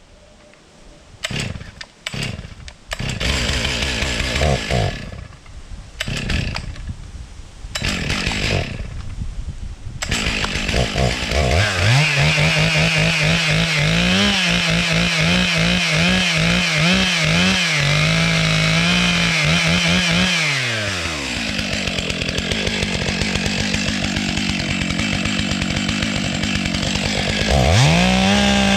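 Stihl 660 two-stroke chainsaw: a few short bursts of revving, then running at full throttle, its note wavering under load as it cuts through the trunk. About twenty seconds in it drops back to idle, and it revs up again near the end.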